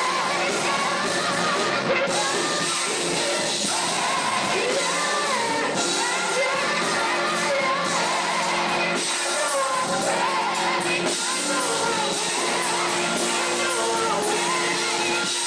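Gospel vocal group singing live over steady held accompaniment chords.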